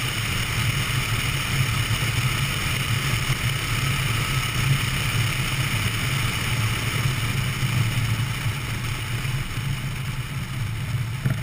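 Piper Super Cub's engine and propeller running steadily, throttled back on the approach to a grass-strip landing, the level easing slightly near the end as the plane settles toward the ground.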